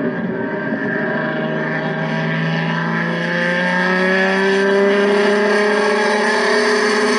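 Turismo Carretera race car engine running loud and steady, its pitch climbing slowly as it gathers revs.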